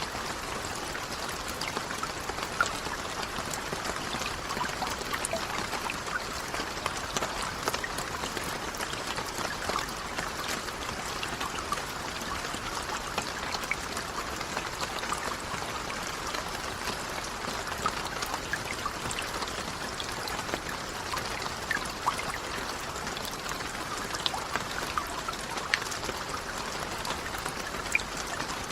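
Steady rain falling, a continuous wash of water with many small, sharp drop hits scattered through it.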